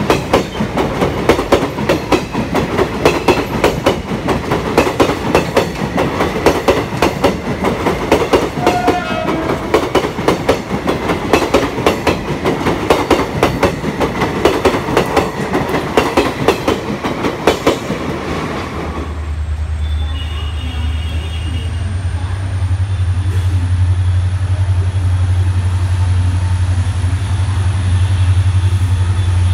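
Blue ICF passenger coaches rolling past close by with dense clickety-clack of wheels over rail joints. About two-thirds of the way in this gives way to a steady low drone from an approaching diesel locomotive, growing slowly louder.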